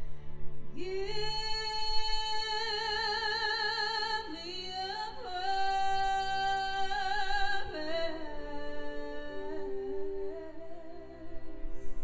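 A woman singing long held notes with wide vibrato over a quieter orchestral accompaniment; her voice comes in about a second in.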